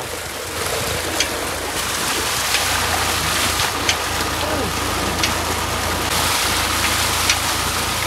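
Water from a running tubewell pouring and splashing steadily, over a low steady hum.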